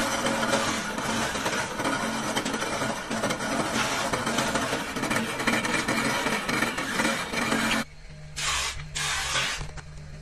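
Drilling machine boring holes through plywood strips: a dense, harsh cutting noise over a steady motor hum. About eight seconds in the cutting noise stops, leaving the motor hum with two short bursts of noise.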